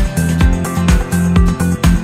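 Upbeat electronic background music with a steady kick-drum beat, about two beats a second.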